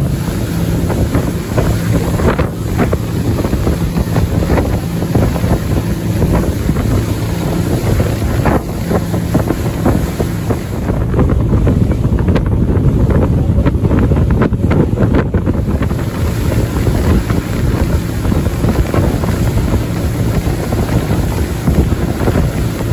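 Rigid inflatable boat running fast: a steady engine drone under heavy wind buffeting on the microphone and rushing water. A few sharp slaps or splashes as the hull meets the water.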